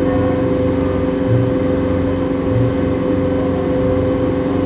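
Water taxi's engine running at a steady speed, heard from on board: a constant drone with a steady tone and a low hum that swells and fades every second or so.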